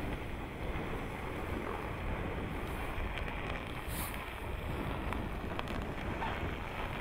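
Wind buffeting the microphone over the low, steady running of a Jeep Grand Cherokee crawling slowly across snow moguls, with a few faint clicks about halfway through.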